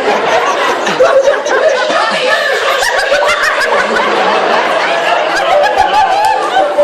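An audience laughing at a joke, many voices at once.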